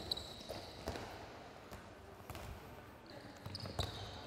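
Handballs bouncing and thudding on a hardwood sports-hall floor in a few scattered thumps, with short high squeaks of players' shoes on the court near the start and again near the end.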